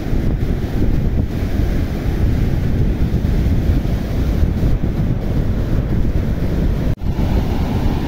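Storm surf crashing and seawater rushing over an eroded beach bank, with strong wind buffeting the microphone into a heavy low rumble. The sound cuts out for an instant near the end.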